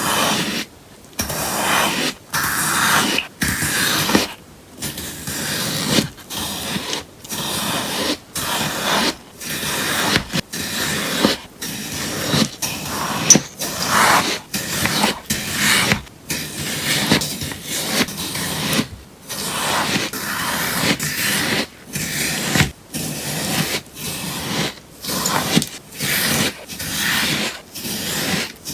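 Sponge slime being cut with crisp, crunchy slicing strokes, about one cut a second, each a short rasping noise.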